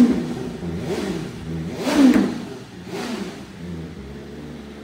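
BMW S1000RR inline-four engine breathing through a newly fitted Arrow slip-on exhaust, blipped from idle. It revs sharply right at the start, again harder about two seconds in, and briefly once more near three seconds, then settles back to a steady idle.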